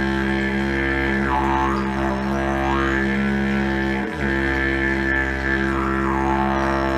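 Didgeridoo played as a continuous low drone, its overtones sweeping up and down as the player shapes the sound with his mouth, with a brief dip about four seconds in.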